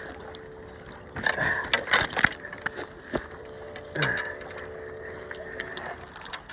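Close handling noise as a striped bass is gripped and lifted off a gravel shore with the phone in hand: rustling and sharp knocks in two clusters, about a second in and again around four seconds.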